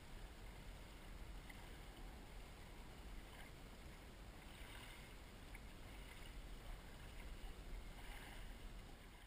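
Faint, steady sloshing and lapping of lake water around a camera held at the surface, with a few slightly brighter splashes around the middle and near the end.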